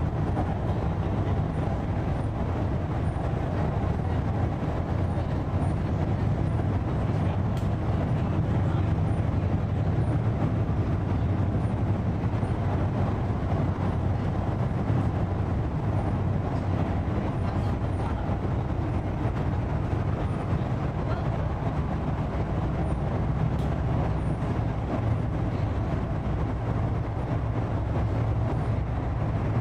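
Steady running noise of an MTR East Rail Line Hyundai Rotem electric train at speed, heard from inside the passenger car. It is a continuous, mostly low-pitched noise that stays even throughout.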